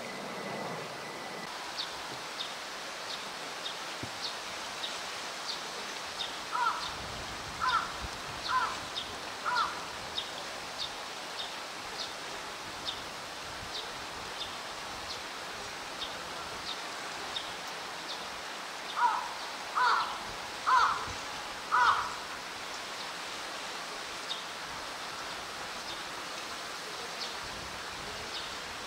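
A crow cawing in runs of four calls about a second apart, twice. Behind it are a steady rushing noise and short high chirps repeating a little more than once a second.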